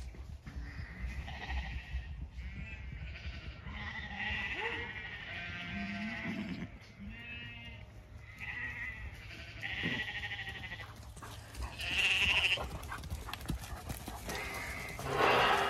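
Sheep and lambs bleating again and again, with a pony nickering as she gallops up to the pen.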